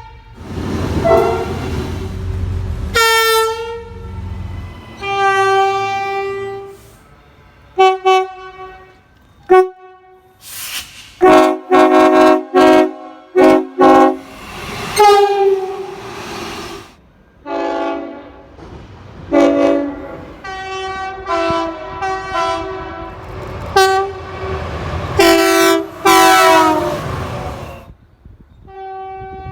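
Locomotive air horns sounding a series of blasts, from short toots to longer calls, with several notes sounding together as a chord. A run of loud, closely spaced blasts comes about halfway through. A low rumble runs under the first few seconds.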